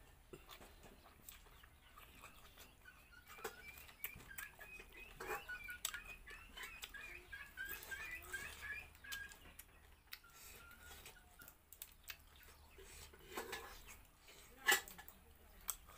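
Close eating sounds of rice being eaten by hand: small wet clicks and smacks of chewing. A bird chirps rapidly in the background for several seconds in the first half, and there is one sharp click near the end.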